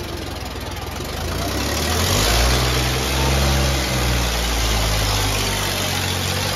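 Diesel tractor engine running hard, revving up and getting louder about two seconds in, then holding at the higher speed.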